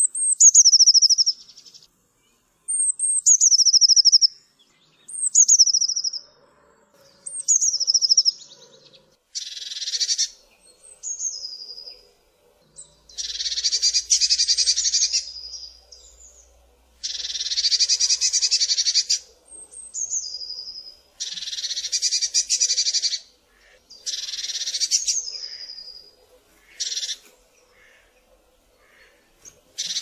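Eurasian blue tit singing. Short phrases of high thin notes slide down into a brief trill, repeated every two to three seconds. From about nine seconds in, these alternate with longer harsh, rasping calls.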